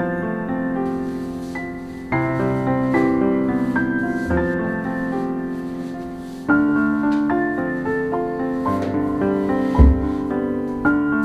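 Background piano music, soft sustained chords with new phrases striking about two seconds and six and a half seconds in. A short low thump sounds about ten seconds in.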